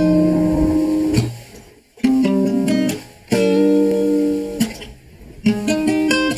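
A music sample playing back: four plucked chords, each ringing about a second or more before the next, with a faint steady hiss of white noise under them that the sample carries as unwanted noise.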